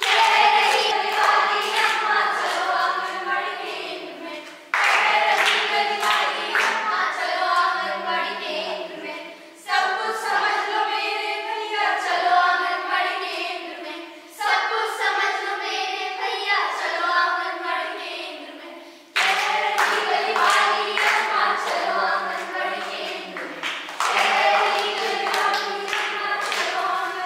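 A group of children singing together without instruments, in repeated phrases of about five seconds each, with hand claps through the song.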